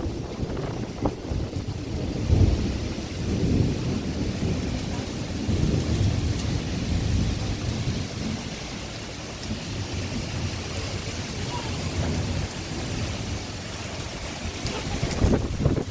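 Steady rain falling in a storm, with strong wind gusting in low, uneven rumbles that swell and fade, loudest near the end.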